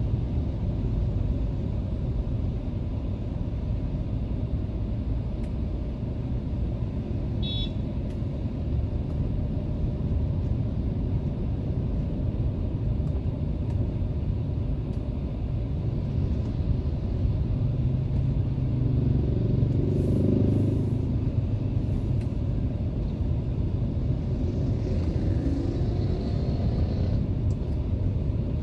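Steady low road and engine rumble heard inside the cabin of a Mercedes-Benz E320 (W210) driving through city traffic. It swells louder about twenty seconds in.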